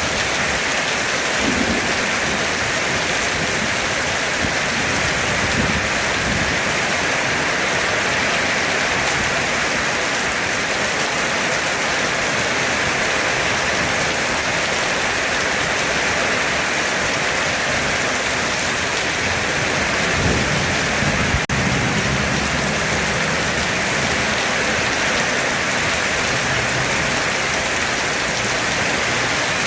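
Heavy rain pouring down in a steady, dense hiss, with a low rumble of thunder about twenty seconds in.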